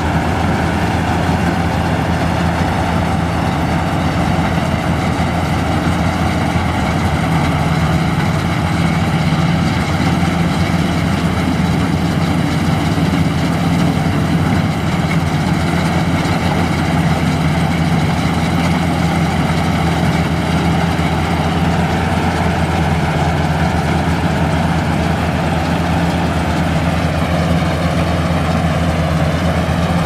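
Maxxi Bimo 110 Plus rice combine harvester running steadily as it cuts and threshes rice, its diesel engine holding an even, low drone under load.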